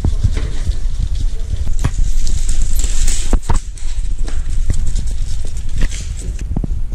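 Basenji puppies' claws clicking on a hardwood floor as they scamper about, many quick irregular clicks over a low rumble, with a louder rustling close to the microphone about three seconds in.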